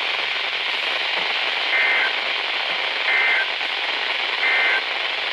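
Radio static hiss with three short two-tone digital data bursts about a second apart: the EAS/SAME end-of-message code that closes the severe thunderstorm warning.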